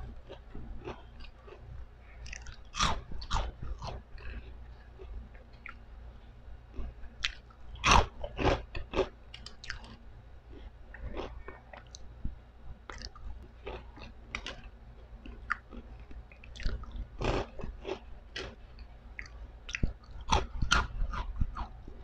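Crunching and chewing of pork chicharon (fried pork rinds): many crisp cracks in clusters, the loudest bite about eight seconds in, over a steady low hum.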